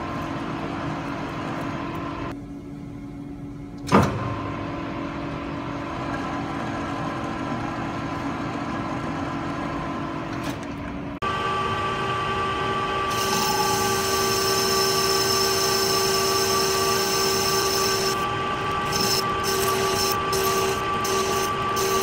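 Small metal lathe running, a steady whine of motor and gears with several held tones, while a 17-4 stainless steel shaft is cut. There is a sharp click about four seconds in. About eleven seconds in, the whine jumps to a louder, different set of tones as a grooving cut is under way.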